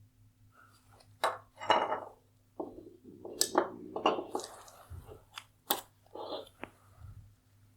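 Disassembled headlight parts being handled and set down on a hard surface: a string of sharp knocks and clicks, with rattling clatter in the middle. A steady low hum runs underneath.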